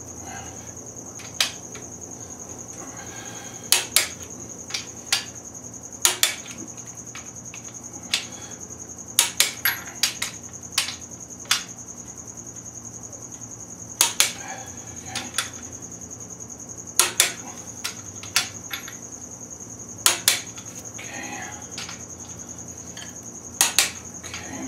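Sharp metallic clicks from a ratchet torque wrench, often two close together every two to three seconds, as the crankshaft main bearing cap bolts of a Ford 302 V8 are torqued down. A steady high-pitched whine runs underneath.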